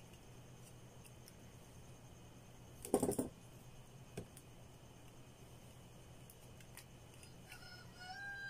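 A two-gang plastic wall switch handled in the fingers: a short clatter about three seconds in and a single faint click about a second later, over a low steady hum.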